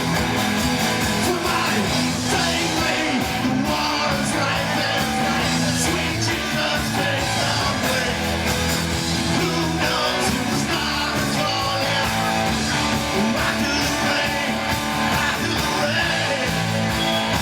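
Rock music: a band with electric guitar, bass and a steady drum beat, with singing.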